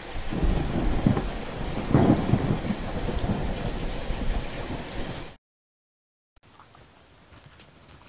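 Thunder rolling over steady heavy rain, with the loudest rumbles about half a second and two seconds in. It cuts off suddenly after about five seconds. After a second of silence there is only a faint, quiet background.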